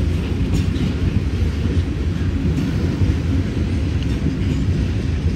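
BNSF freight train of tank cars rolling past: a steady low rumble of the cars on the rails, with a few faint clicks.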